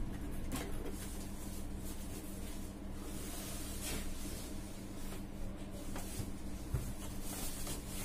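A cardboard product box being opened and a small table fan lifted out: soft, scattered rustling and scraping of cardboard and packaging, over a steady low hum.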